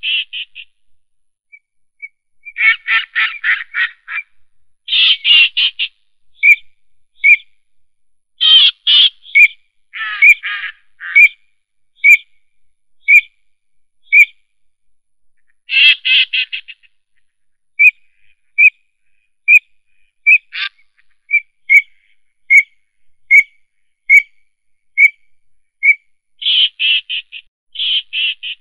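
Night animal calls: bursts of fast, rattling pulsed trills, each about a second long, alternating with short, high piping notes repeated roughly once a second.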